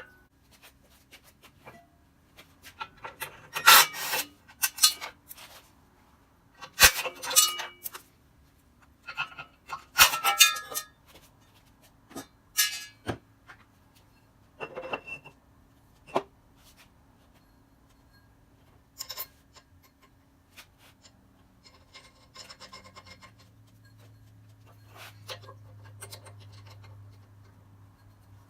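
A CBN grinding wheel and its washers being fitted onto a grinder by hand: irregular clinks, knocks and scraping of metal parts. A low steady hum comes in near the end.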